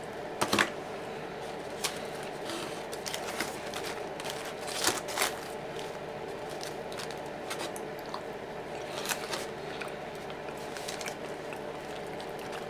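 Drinking soda from an aluminium can: wet sips, gulps and mouth smacks, the loudest about half a second in and again around five seconds in, over a steady low hum.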